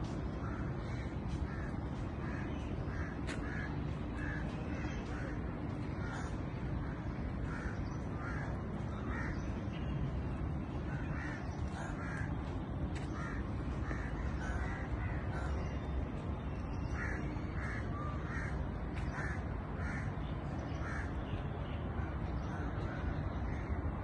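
Crows cawing, many short calls repeated over and over, over a steady low background noise.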